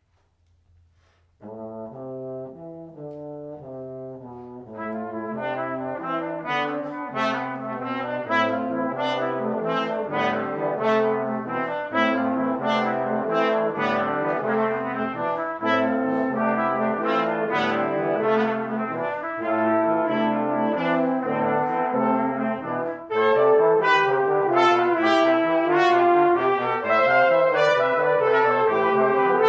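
A brass quintet of trumpets, French horn and trombone playing a contemporary concert piece. The ensemble enters quietly about a second and a half in, fills out after about five seconds, and grows louder again about six seconds before the end.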